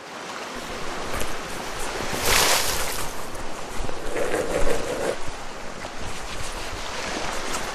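Surf washing on a beach: a steady hiss of waves that swells once about two seconds in.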